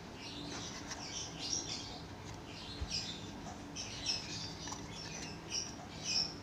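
Small birds chirping in quick, irregular bursts, over a faint steady low hum.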